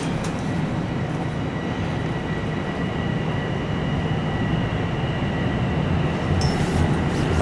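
Bombardier Toronto Rocket (TR) subway train running, heard from inside the car: a steady rumble of wheels and motors with a thin high whine, growing gradually louder.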